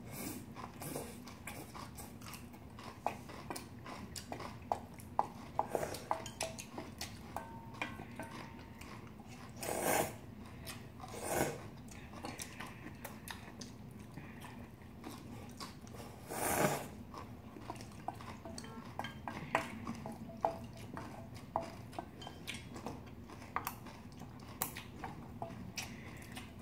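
Spoons and chopsticks clinking and scraping against stainless-steel bowls, with chewing, as people eat bibimbap and noodles. A few louder noises come about ten, eleven and a half and sixteen and a half seconds in.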